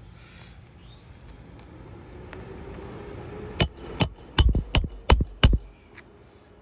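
Hand hammer driving a roofing nail through a shingle with six quick strikes, each with a short metallic ring. The nail will not sink flush, held up by the roof snake repair tool.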